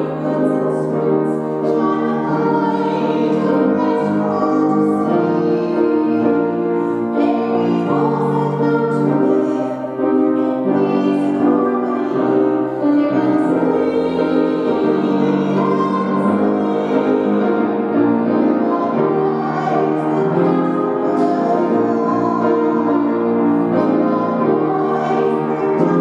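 Recessional hymn music in a church: a keyboard plays sustained chords under a woman's singing voice.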